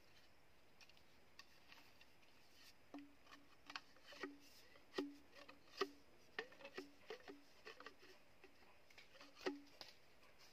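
Green bamboo pieces knocking and clicking together as a short bamboo sleeve is worked onto a bamboo pole: an irregular run of about a dozen sharp knocks, several with a brief hollow ring, loudest about five and six seconds in.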